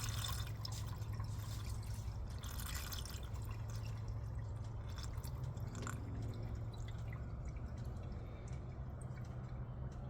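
Liqui Moly Pro-Line engine flush being poured from its can into the engine's oil filler neck, liquid pouring and dripping, busiest in the first few seconds, over a steady low hum.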